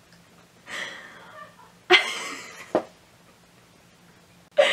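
A young woman's stifled, breathy laughter behind her hand: a few short bursts in the first three seconds and another just before the end.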